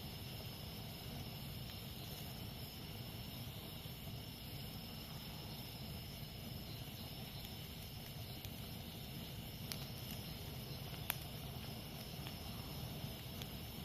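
Campfire burning with a low steady hiss and a few sharp crackling pops, the loudest about eleven seconds in, over a steady high drone of jungle insects.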